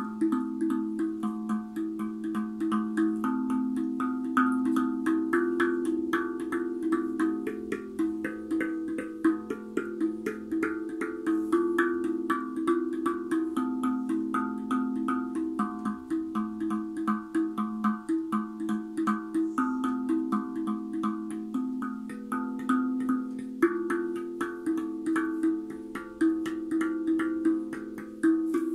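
Guda Freezbee steel tongue drum played with the fingertips: a continuous run of quick struck notes, several a second, each ringing on and overlapping the next.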